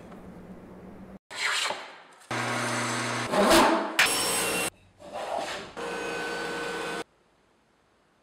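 Woodshop sounds cut together in short clips: swishing hand-plane strokes and a table saw running with a steady hum and cutting through a board. Each clip starts and stops abruptly, and the sound cuts to silence about seven seconds in.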